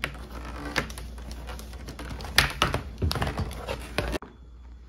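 Irregular light clicks and knocks of plastic parts being handled as the drain hose and its clamp are fitted to a dishwasher's plastic frame. The clicking cuts off suddenly about four seconds in.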